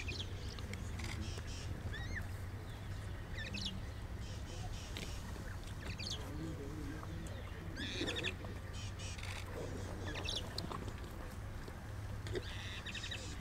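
Birds chirping and twittering in short bursts over a steady low hum.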